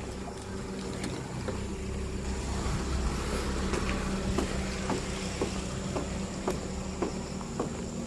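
Motorcycle engine running steadily at low revs, a low even hum.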